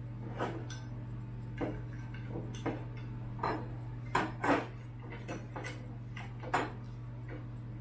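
Small metal clicks and taps from screws and an aluminium bracket being handled and set against an aluminium extrusion, about eight irregular clicks with the two loudest close together a little past the middle, over a steady low hum.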